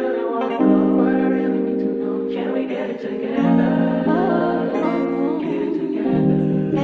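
Background music: a song with singing over held guitar chords.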